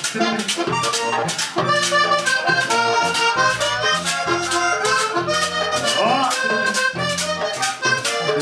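Vallenato music led by a button accordion playing a fast melody, over a pulsing bass and a steady scraped percussion rhythm.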